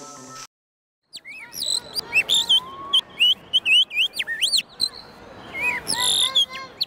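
Bird-song imitation on a Birdyman tongue whistle: after a brief silence, from about a second in, a loud run of chirps, warbles and fast up-and-down whistled glides, broken by short pauses.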